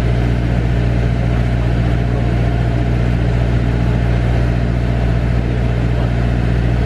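Steady, loud low engine drone on an airport apron, with no change in pitch or level.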